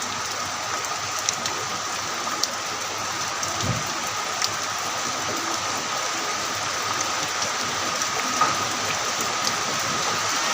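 Heavy rain falling steadily, a continuous hiss with scattered sharp ticks of drops striking nearby surfaces.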